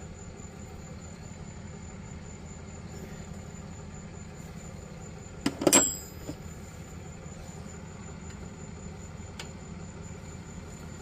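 Steady low hum with a thin high whine, broken a little past halfway by one sharp metallic clank that rings briefly: a steel hand tool knocking against metal while a wrench is fitted to the brake caliper bolt.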